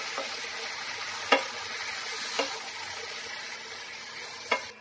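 Mustard-paste masala sizzling in hot oil in a non-stick kadai while a wooden spatula stirs it, the paste just beginning to fry. Three sharp knocks of the spatula against the pan, about a second in, midway and near the end.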